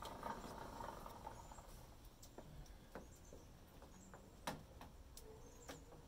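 Faint, brief high chirps from small birds a few times, with scattered light clicks, against quiet outdoor background.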